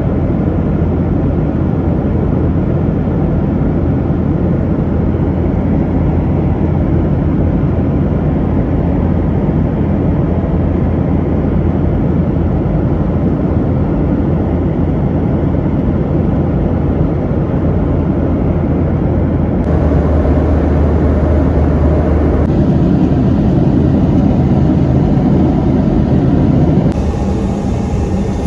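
Steady rumble and rushing of a Boeing 737-900 jet airliner's engines and airflow, with the mix changing abruptly about twenty seconds in and again near the end.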